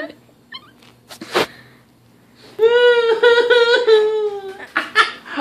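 A person's long, high wailing cry that falls slowly in pitch, about halfway through, after a quiet start broken by a single click. Short choppy vocal bursts follow near the end.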